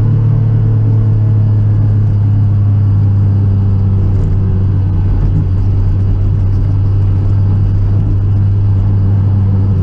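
Rally car's engine running at steady, unchanging revs as the car rolls slowly, a constant low drone heard from inside the cabin.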